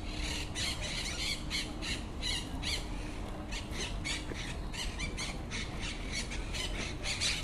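Birds at a nest, most likely nestlings, giving a continuous string of short raspy calls, several a second.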